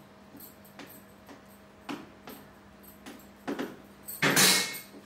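Plastic spice container being handled on a kitchen counter: light clicks and taps, then a louder half-second scrape about four seconds in, over a faint steady hum.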